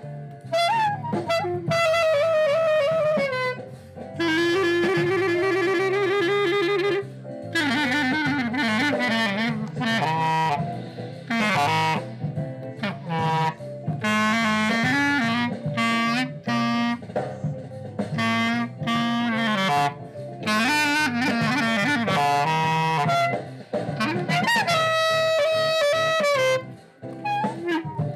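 Glory GLY-PBK B-flat clarinet fitted with a Belmonte hard rubber mouthpiece, played in short melodic phrases of held and moving notes, some with a wavering pitch, broken by brief pauses.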